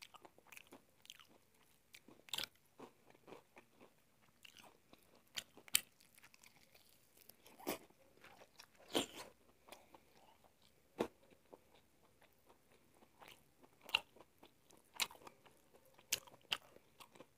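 Crisp flour-and-starch coating of fried chicken crunching as it is bitten and chewed, in scattered sharp crunches with short quiet gaps between.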